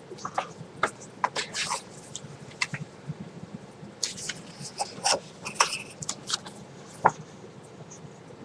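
Paper rustling and flicking as the pages of a booklet are handled and turned, in a string of short irregular crinkles and clicks, the sharpest about seven seconds in.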